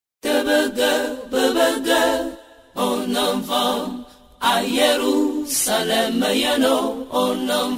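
Unaccompanied chant-like singing, starting just after silence, in three phrases with short breaks between them.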